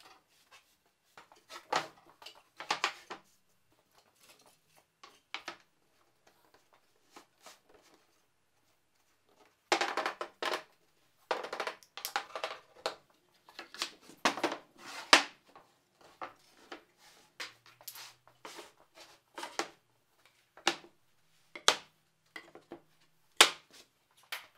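Mallet tapping plywood pieces together on a workbench: a run of sharp wooden knocks in the middle, with scattered single knocks before and after as the boards are handled.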